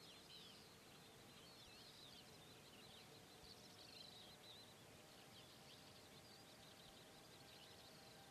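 Faint birdsong: small birds twittering in short, high, warbling phrases over a steady low hiss.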